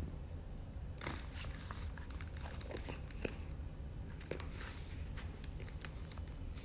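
Faint rustling with many small clicks and crackles, starting about a second in.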